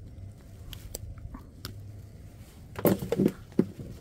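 Handling noises from the catch and tackle at the angler's feet: a few light clicks, then a cluster of louder sharp knocks and rattles about three seconds in, over a faint low hum.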